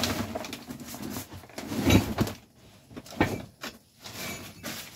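Clunks and knocks of objects being moved and handled while rummaging, with a heavier thump about two seconds in and a few sharp knocks after it.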